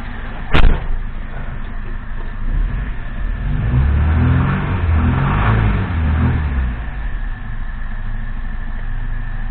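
Moskvich 412's UZAM four-cylinder engine revved up from idle to around 2000 rpm and back down to a steady idle near seven seconds in, after a single sharp click right at the start. The raised revs bring out a knock from the cylinder head, which the owner suspects is a broken valve spring letting a valve and piston strike each other.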